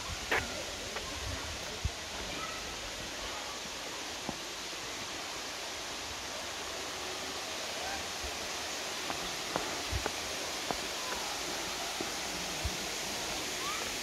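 Steady rushing of a rainforest waterfall and creek, with scattered light clicks and knocks close by.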